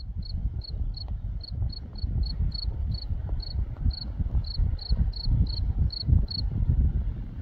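Cricket chirping: short, high, even chirps repeated about three times a second, which stop near the end. A loud, uneven low rumble runs underneath.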